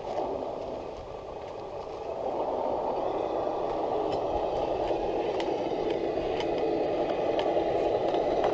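Electric motors and geared drivetrains of two RC scale crawler trucks (Traxxas and RC4WD Land Rover Defender 110 models) whirring as they crawl over rock, growing louder about two seconds in as they come closer, with faint clicks of tyres on rock and gravel.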